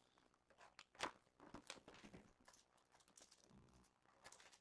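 Faint crinkling and rustling of trading-card box packaging being handled and opened, with scattered small clicks, the sharpest about a second in.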